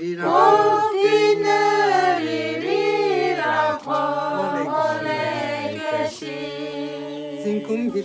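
A small group of men and women singing together unaccompanied, holding long notes that glide from one pitch to the next.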